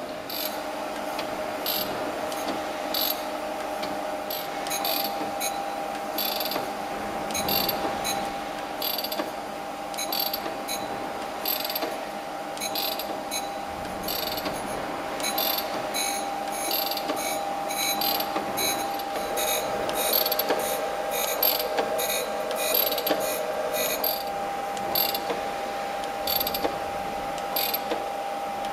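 Jones and Shipman 540 surface grinder running: a steady whine under repeated sharp clicks of its feed mechanism, sparse at first and coming more often from about halfway through.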